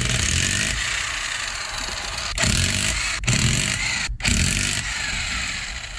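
Corded electric impact wrench hammering as it removes the wheel's lug nuts. It runs in a few bursts with brief stops between them in the second half.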